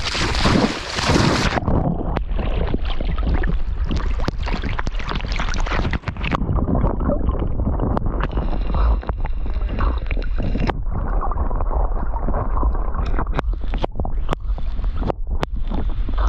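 Water sloshing and splashing around a swimming dog, heard from a camera strapped to her back, with many small knocks. The sound turns muffled a few times and then opens up again.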